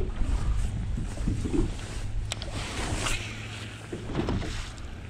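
Wind buffeting the microphone and water lapping at a bass boat's hull, under a steady low hum that fades out about three seconds in.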